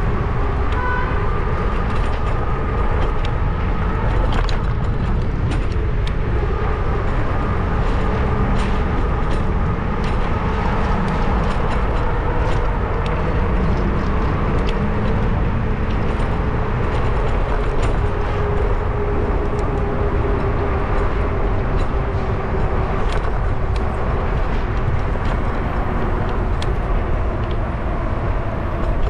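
Steady wind and road rumble on a camera microphone riding along on a bicycle, with scattered small clicks and rattles and a faint hum that wavers slowly in pitch.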